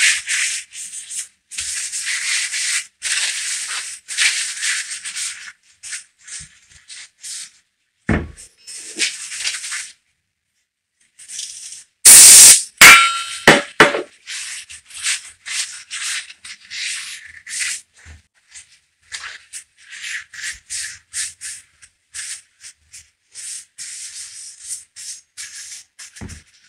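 Paper towel rubbing in short, repeated strokes over the steel bearing journals of a crankshaft, being wiped clean with brake cleaner. About twelve seconds in there is a brief loud hiss of the aerosol brake cleaner spray, and there are two dull knocks, one in the middle and one near the end.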